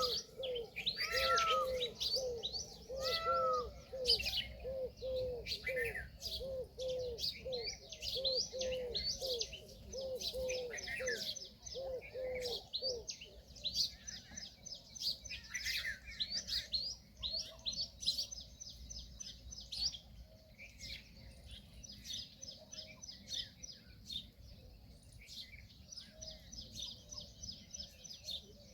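Birds calling: a short, low, arched call repeated about twice a second for roughly the first thirteen seconds, over continuous high chirping and trilling of small birds, which carries on alone after the low calls stop.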